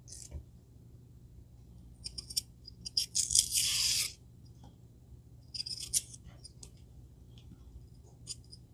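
Celery strings being stripped off a celery stalk with a small knife: crisp tearing and snapping in short bursts, the longest and loudest about three seconds in.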